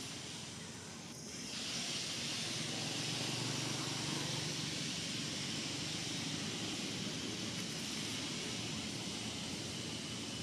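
Steady outdoor background noise: an even hiss with a low rumble underneath, growing a little louder about two seconds in and then holding steady.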